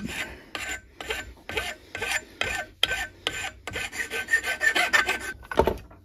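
Flat hand file rasping across the freshly cut end of a bicycle fork's steerer tube to deburr it: many short back-and-forth strokes, about three a second, running together into a steadier stretch in the second half.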